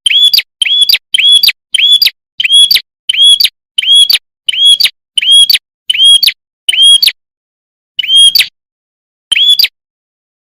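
Looped lure-call recording of a red-headed prenjak (prenjak kepala merah): a loud, sharp chirp repeated about every two-thirds of a second, each note swooping up into a high held tone. The run breaks into two longer pauses near the end.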